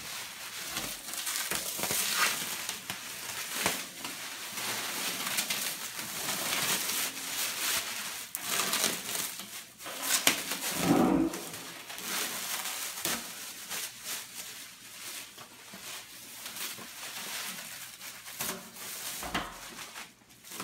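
Clear plastic stretch wrap being pulled off a stainless-steel honey extractor drum and bunched up by hand: continuous crinkling and crackling, with a short dull knock about halfway through.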